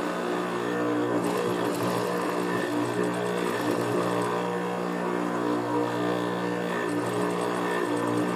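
Juki industrial sewing machine running and stitching suede fabric: a steady motor hum throughout, with the needle's stitching noise coming in about a second in.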